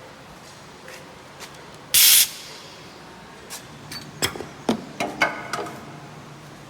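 A short, loud blast of compressed-air hiss about two seconds in, followed by a run of sharp knocks and clatters as a wooden workpiece and tools are handled at the lathe.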